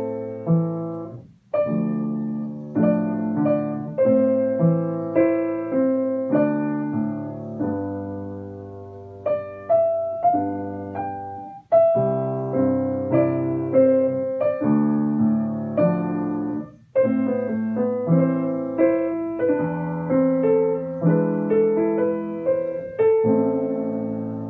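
Grand piano played four hands, two players sounding chords and melody together in phrases, with short breaks in the playing about 1.5, 12 and 17 seconds in and a held chord dying away near the end.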